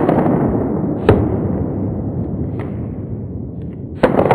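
Hunting gunshots fired in quick succession: a shot about a second in, a fainter one a moment later and another near the end, each crack followed by a long rolling echo, with the echo of a shot fired just before still dying away at the start.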